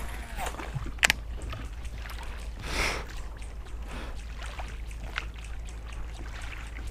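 Oars working the water beside a small rowed skiff: soft sloshing with a few light knocks, and a brief swishing splash about three seconds in.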